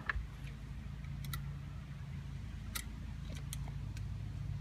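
A few light metallic clicks and ticks from an Allen key working the screws of a steering wheel quick-release hub, over a low steady hum.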